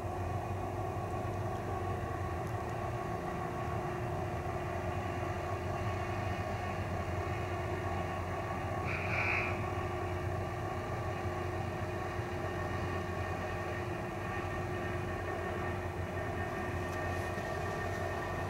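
Distant diesel freight locomotive running, a steady low rumble with a constant hum, and a brief high-pitched tone about nine seconds in.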